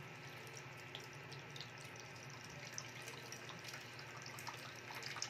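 A thin stream of water pouring into the black nonstick inner pot of a multifunction electric boiler, splashing steadily with small drip ticks.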